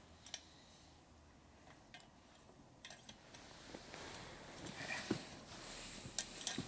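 Faint, sparse metallic clicks and ticks of stainless steel wheel spokes being worked in a motorcycle wheel hub where they are bound up tight, the clicks coming more often in the second half.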